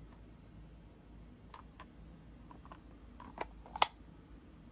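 Pistol being worked into a molded plastic holster with an on-board retention latch: a scattering of small clicks and taps, the sharpest near the end as the latch snaps into place.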